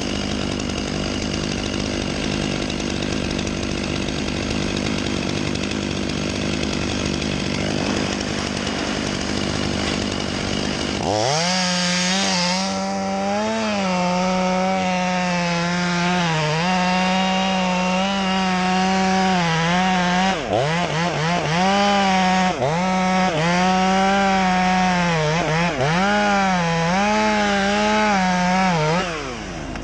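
A steady machine drone, then about 11 seconds in a chainsaw is run up to full speed and cuts, its high pitch dipping briefly again and again as the chain bogs down in the wood. It winds down just before the end.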